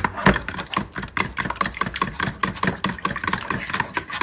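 A fork beating eggs and vegetable oil by hand in a plastic mixing bowl, its tines clicking against the bowl in a rapid, even rhythm of about six strokes a second.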